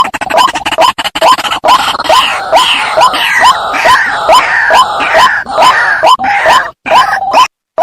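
White-breasted waterhen (ruak-ruak) calling: a short rising note repeated about two and a half times a second. From about two seconds in, a louder, harsher chorus of calls runs over it and breaks off shortly before the end, leaving the single repeated note. A recorded lure call for drawing waterhens in.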